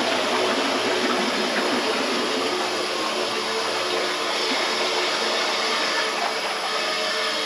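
Water pouring steadily into the water tray of a CNC plasma cutting table as it fills, a constant rushing noise.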